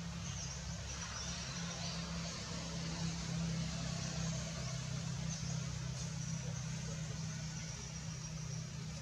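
A motor vehicle engine runs steadily with a low hum under a steady hiss, with a few faint high chirps.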